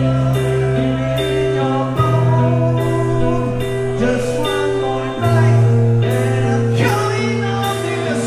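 Rock band playing: electric guitar, bass guitar and drums, with a voice singing. The bass holds long notes under the chords, and the drums strike about twice a second.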